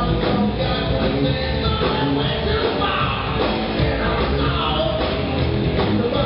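Live rock band playing a song at full volume: distorted electric guitars, bass and a drum kit, steady and dense throughout.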